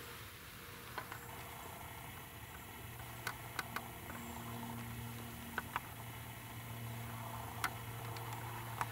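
Scattered sharp clicks and ticks from a video camera on a stiff tripod being handled and panned, over a faint steady low hum that grows slightly louder a few seconds in.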